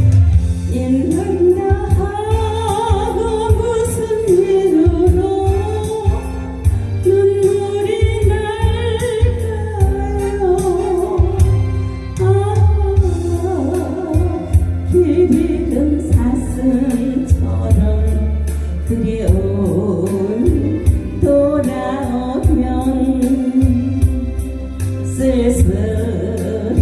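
A woman singing a slow Korean ballad melody with vibrato over backing music with a steady beat and bass.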